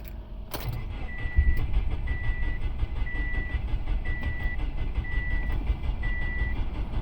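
A car's warning chime beeps six times, about once a second, over a steady low rumble, with a click just before the chime starts.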